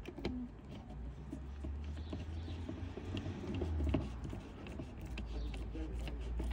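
Scattered light clicks and taps as a small Torx screw is driven by hand into the plastic kidney grille, over a low steady rumble.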